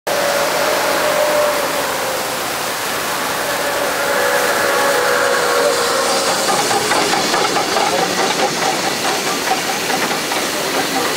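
Achenseebahn steam locomotive hissing steam close by. A faint steady tone slowly falls in pitch over the first half, and from about halfway a rhythmic beat joins the hiss as the engine draws past on the neighbouring track.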